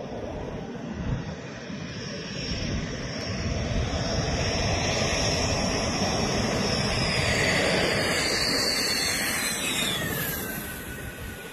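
Dassault Rafale fighter jet flying past: the jet engine noise builds over a few seconds and is loudest around the middle. Near the end a high whine slides down in pitch as the jet passes, and the sound fades.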